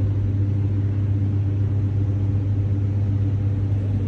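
Steady low machine hum with a few fainter overtones above it, holding an even level throughout.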